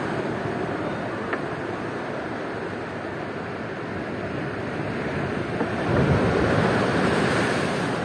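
Sea surf washing on the shore, with one swell growing louder about six seconds in, and wind on the microphone.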